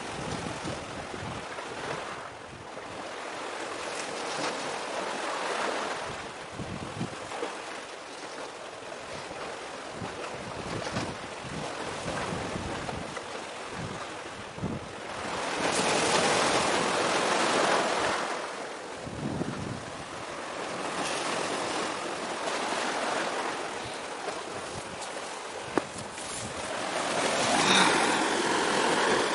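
Sea waves washing and wind buffeting the microphone, a rushing noise that swells and fades every few seconds.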